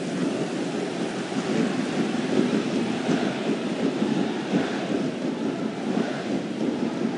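Football stadium crowd noise: a steady din of many voices from the stands, with no single shout or whistle standing out.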